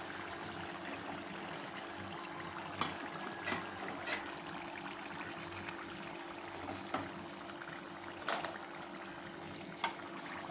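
Samosas deep-frying in hot oil: a steady sizzle and bubbling, with a few light taps of a plastic slotted spoon against the pan as they are lifted out.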